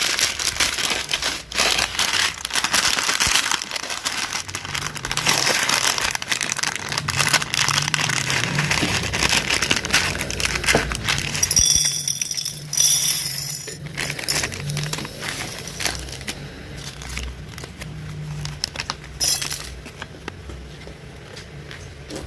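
Hands rummaging through LEGO bricks and their plastic packaging: crinkling and rustling with many small clicks of plastic pieces. A low steady hum runs underneath from about five seconds in, and the handling grows quieter toward the end.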